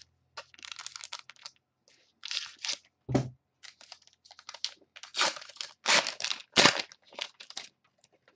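Football trading card pack wrapper being cut and torn open, crinkling in the hands, with the cards inside sliding out, and a single knock about three seconds in.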